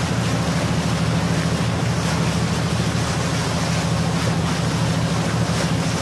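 Passenger ferry's engine running with a steady low drone, under wind buffeting the microphone and water rushing past the hull.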